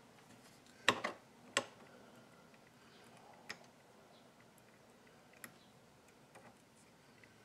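Sharp clicks and taps of an Allen key working the set screws under the head of a Frankford Arsenal M-Press coaxial reloading press: three louder clicks about a second in, then a few fainter ticks spread apart.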